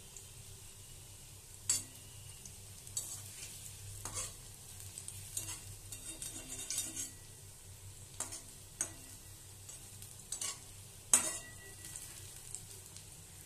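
Bitter gourd and onion fritters in gram-flour batter sizzling as they shallow-fry in oil in a kadai, with a spatula scraping and knocking against the pan now and then. The loudest knock comes about eleven seconds in.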